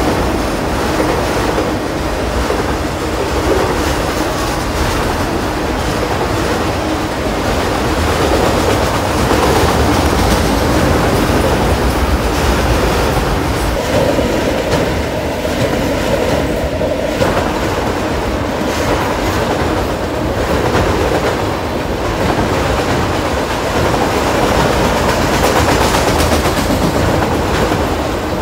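Freight train of autorack cars rolling past at speed, a steady rumble of wheels on rail with repeated clicks as the wheels cross the rail joints.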